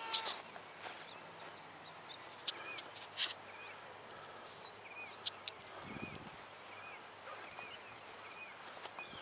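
The high whine of an RC plane's electric motor cuts off just after the start. After that, a bird's short whistled chirps repeat over a quiet outdoor background, with a few sharp clicks and a brief low rumble about six seconds in.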